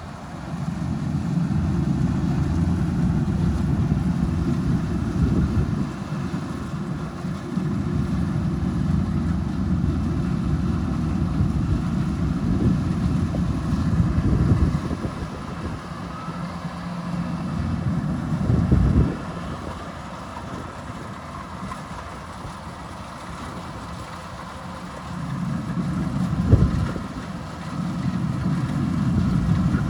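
Rice combine harvester's engine running, its level rising and falling, with two sharp louder thumps, one about two-thirds of the way through and one near the end.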